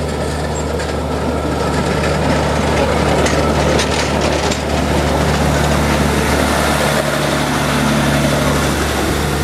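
Diesel engine of a KTM rail maintenance trolley running steadily with a low, even hum as the trolley rolls slowly past at close range, with a few sharp metallic clicks from the wheels on the track about three to four seconds in.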